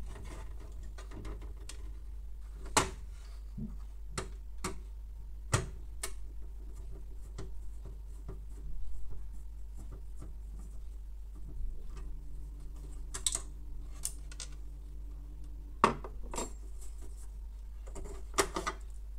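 Hard plastic parts of a Canon MF216n laser printer clicking and knocking as its casing and hinge mount are worked with a screwdriver: scattered sharp clicks, the loudest about three seconds in and near the end, over a steady low hum.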